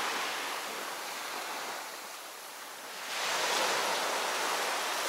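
Small waves washing up on a sandy beach: a steady hiss of surf that eases off and then swells again about three seconds in.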